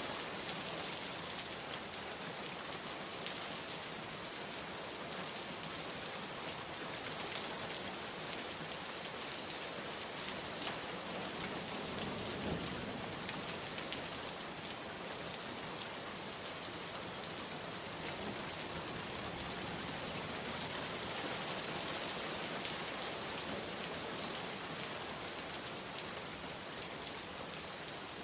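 Steady rain falling, a dense even hiss with many small drops pattering on a surface.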